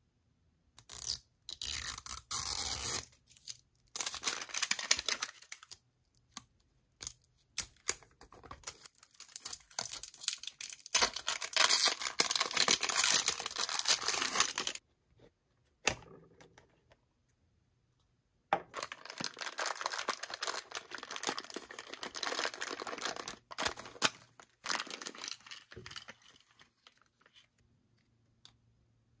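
Toy packaging being opened by hand: tearing and crinkling in several long bursts with pauses and a few sharp clicks between them.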